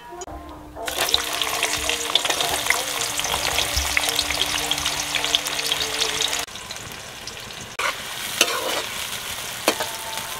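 Sliced onions frying in hot ghee in a steel karahi: a dense crackling sizzle, with a slotted spoon scraping and clicking against the pan as they are stirred. The sizzle drops in level about six seconds in, leaving quieter frying with sharp spoon clicks.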